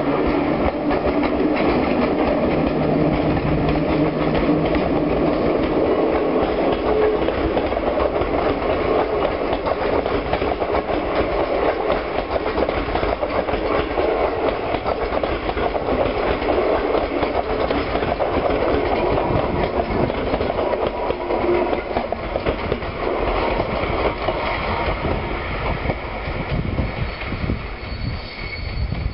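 Passenger train pulling out behind a PKP EP07 electric locomotive and rolling past: the locomotive's electric drive hums with steady tones in the first few seconds, then the coach wheels rumble and clack over the rails as the carriages go by, fading near the end as the train moves away.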